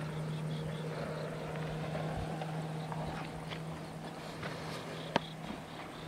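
Steady drone of a distant motorboat engine, holding one low pitch, with a single sharp click about five seconds in.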